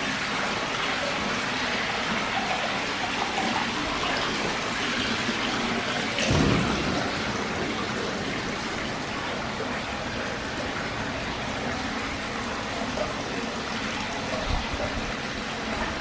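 Natural hot-spring water pouring from a spout into a bath, a steady splashing and trickling. A brief louder thump about six seconds in.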